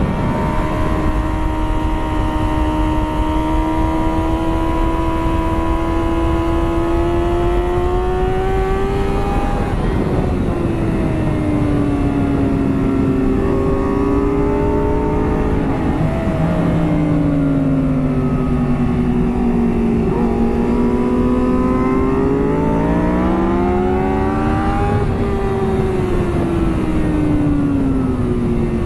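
2009 Kawasaki ZX-6R's inline-four engine heard onboard at speed on track. The note climbs slowly, drops about ten seconds in and again a few seconds later, then rises to a high point near the end before falling away, over a steady rush of wind.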